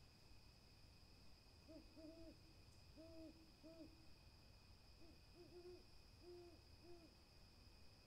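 Burrowing owls hooting: about ten short, soft, low coos in two clusters, over a steady high-pitched hum.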